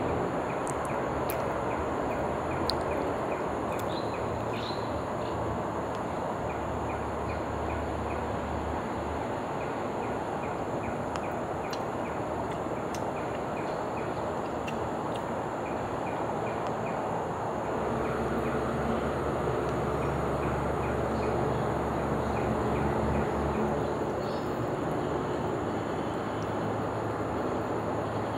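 Outdoor ambience: a steady low rumble of distant vehicles that swells and eases, with a faint, quick, regular high chirping running over it.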